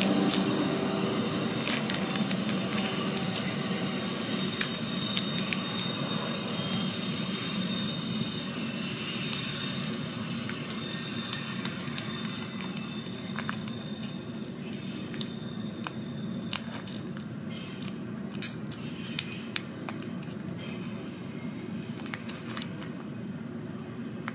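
Foil trading-card pack wrappers crinkling and crackling as they are handled, with many sharp irregular crinkles. Near the end a pack is pulled open.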